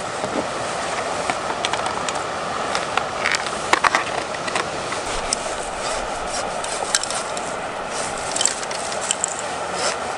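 Fishing tackle being handled: a float box, then a telescopic carp rod drawn out section by section, giving scattered clicks and light taps over a steady rushing background noise.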